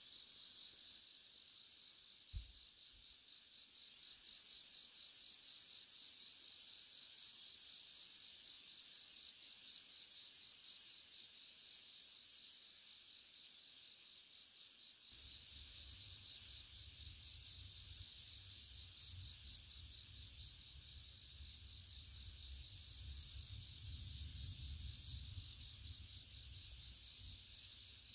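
Crickets trilling steadily in a fast, even pulsing chorus. About halfway through, a low rumble joins in, and there is one faint click early on.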